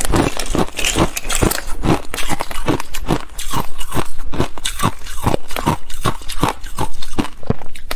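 Ice being chewed: crisp crunches in a quick, steady rhythm of about three to four a second as the pieces are bitten and broken between the teeth.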